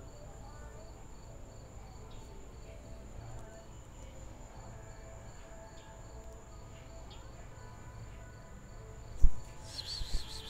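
Insects chirping: a steady high trill, with a second chirp repeating about four times a second. Near the end, a sudden thump followed by a brief rustle.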